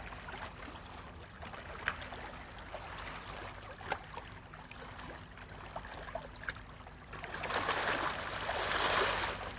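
Small river waves lapping at the shoreline, with a louder wash of water about seven seconds in. A faint steady low hum runs underneath.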